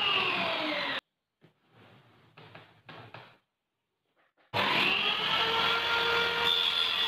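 Small table saw running, its motor and blade giving a steady whine with several tones whose pitch sinks for about a second. The sound then cuts out abruptly to near silence with a few faint knocks for about three and a half seconds, and the saw comes back in suddenly, its pitch rising and then holding steady.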